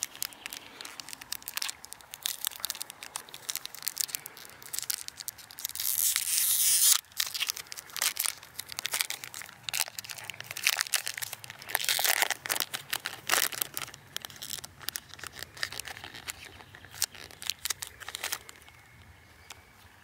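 A foil Pokémon booster pack being crinkled and torn open by hand, with irregular crackling and rustling and louder tearing about six seconds in and again about twelve seconds in.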